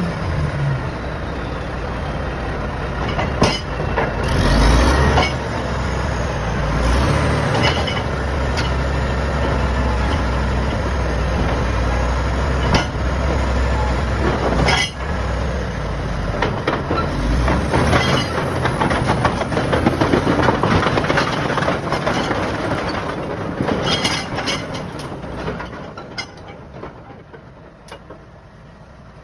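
Shantui SD16 crawler bulldozer working, its Weichai diesel engine running under load with a deep rumble and occasional sharp knocks. The sound fades away near the end.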